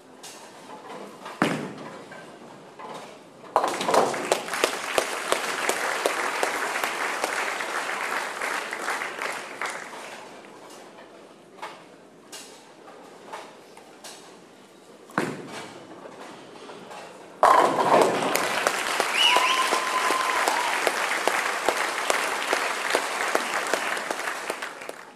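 Ten-pin bowling ball landing on the lane with a thud, then about two seconds later a sudden crash of pins and the crowd applauding and cheering for several seconds before it dies away. The whole sequence happens twice.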